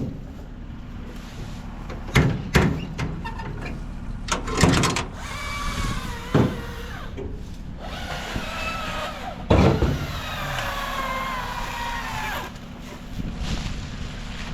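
An engine running steadily at low speed, with several sharp clanks and knocks of metal and wood handling and a slowly falling whine in the middle.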